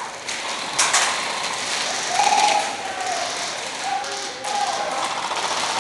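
Airsoft fire in an indoor plywood arena: a sharp crack about a second in, then a run of clicks and taps of guns firing and BBs striking the wooden walls, with players shouting over it twice.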